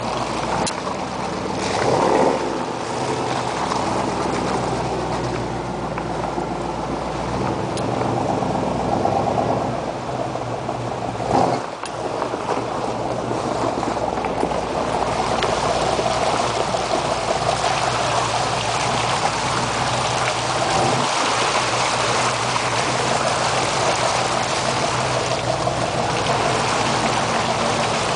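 4x4 truck engine running at low trail speed, with a brief louder knock just before the middle. In the second half the tyres splash and churn through a muddy water hole, adding a steady rushing water noise over the engine.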